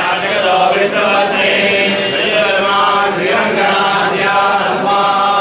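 Men's voices chanting a religious recitation in a steady, continuous drone of overlapping voices.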